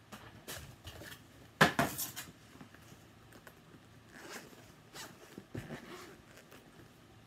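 Zipper on an FPV goggles' hard-shell carrying case being pulled open in several short rasping pulls, the longest and loudest about a second and a half in.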